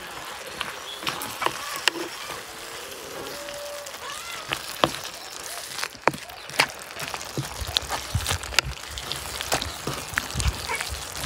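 A wooden spoon stirs chunky vegetables in a clay tagine, giving many sharp clicks and knocks against the earthenware over a steady hiss from the simmering stew.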